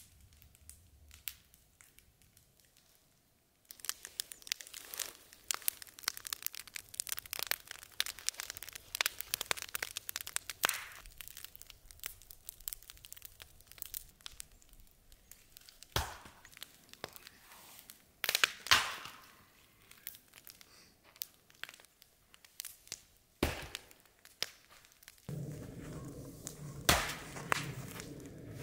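Wood fire crackling and popping in quick irregular snaps, with a few sharper, louder pops. Near the end a fuller, lower rustling noise joins in.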